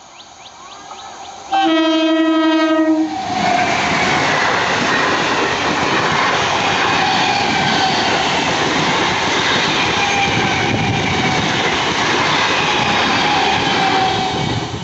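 EMU local train's horn sounds once for about a second and a half, then the train runs past at speed: a loud steady rumble of wheels on rail with clickety-clack and faint thin squeals, easing off near the end.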